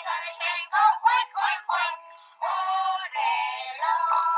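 Electronic sung tune playing from a toy Peppa Pig train's small built-in sound unit: quick syllables about four a second, a brief dip about two seconds in, then longer held notes. It sounds thin, with no bass.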